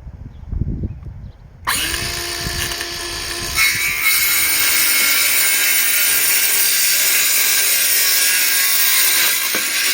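Ryobi 18V cordless 5-1/2-inch circular saw: a few handling thumps, then the motor starts suddenly with a steady whine less than two seconds in. About three and a half seconds in, the blade bites into an old, hard piece of wood and the sound turns louder and noisier, holding steady through the cut.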